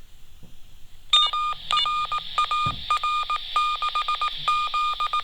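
Morse code signal received on a walkie-talkie, played back through a phone's speaker. A steady high beep is keyed in fast dots and dashes over radio hiss, starting about a second in.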